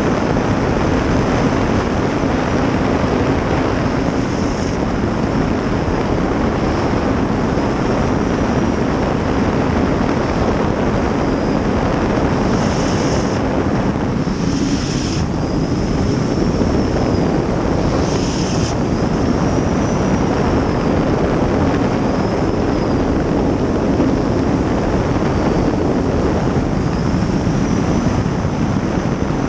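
2000 hp gas-turbine river-racing jet boat, a 23-foot Outlaw Eagle hull, running flat out, heard from inside its open cockpit. The turbine, the jet and the rushing water make a loud, steady, unbroken roar.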